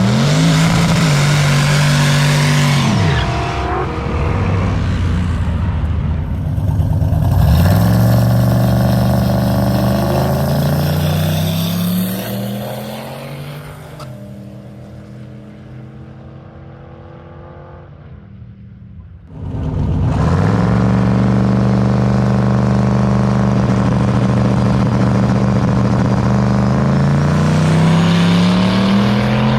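Drag-racing engines at full throttle, pitch climbing and then holding high, in several loud runs. The middle stretch is quieter, with the engine note falling away, before another loud run starts abruptly.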